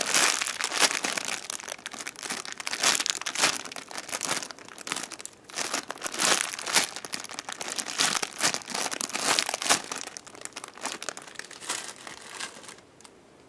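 Clear plastic bag crinkling in irregular bursts as a homemade squishy toy is squeezed and turned inside it, stopping about a second before the end.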